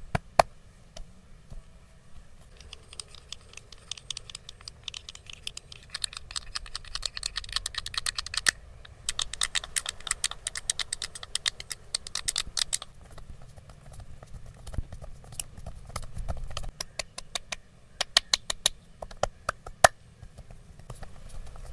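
Wooden massage sticks tapping quickly on the head and back, in fast runs of sharp taps with short pauses and a few louder single knocks.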